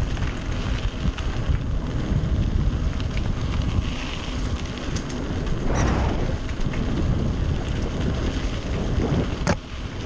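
Wind rushing over a GoPro Hero Session's microphone and tyre rumble as a Voodoo Hoodoo mountain bike rolls down a rough dirt trail. A few sharp rattles of the bike come through, the sharpest near the end.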